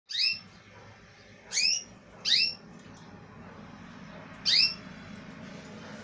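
Caged canary giving four short, loud, rising call notes, a little over a second apart, over a low steady hum.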